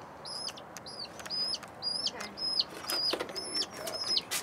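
Baby chicks peeping steadily, about three high peeps a second, each a level note that drops at the end, with a few faint taps and scratches in their cardboard box.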